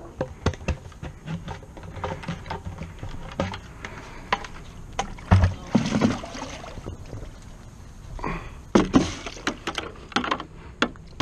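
A plastic bait bucket being dipped into water and filled, with water splashing and sloshing in it, and knocks and clicks from the bucket and its lid being handled.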